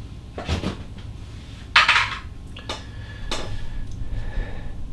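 Handling noise from the cardboard toy box and its packaging being set aside: a few light knocks and clicks, with one louder short rustling scrape about two seconds in. A faint steady whine runs through the second half.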